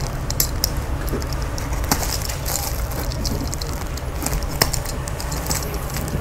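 The stitched seam of a woven plastic sack bale being cut open with a small cutter: irregular sharp snaps of stitches giving way and crackly rustling of the sack, over a steady low hum.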